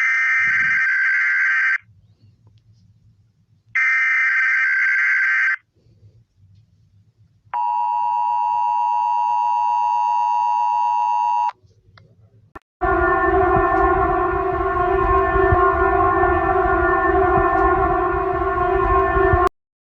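Emergency Alert System alert tones: two buzzy data bursts of about two seconds each, then the steady two-tone attention signal for about four seconds. After a short gap comes a louder, harsher alarm tone of several pitches for about seven seconds, which cuts off suddenly.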